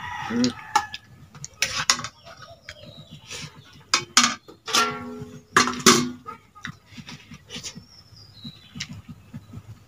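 Hand-eating sounds: quick wet clicks of chewing and lip-smacking over rice and curry. Farm animals call around them, with one long pitched call about five seconds in and a short falling chirp near the end.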